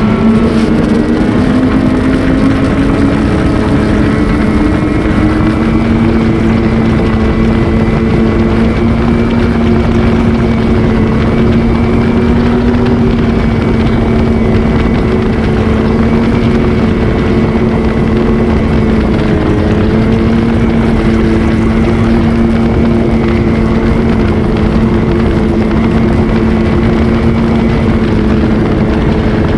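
Ski-Doo Renegade XRS 850 snowmobile's two-stroke twin engine pulling hard and then holding a steady high-speed cruise, its pitch dipping briefly about twenty seconds in and coming back up, with wind noise over the microphone.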